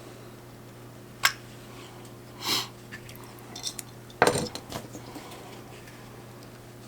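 Nissan RB-series ignition coil packs being handled as their rubber boots are pulled off: a click, a short rubbing swish, then a clatter of hard plastic with a few lighter knocks about four seconds in. A steady low hum runs underneath.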